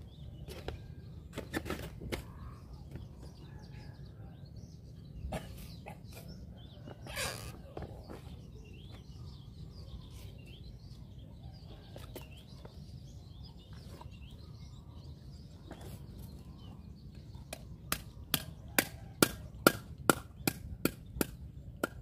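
A cleaver chopping striped catfish on a wooden chopping block: a few single knocks early, then a fast run of about a dozen sharp chops, two to three a second, near the end. Birds chirp faintly throughout.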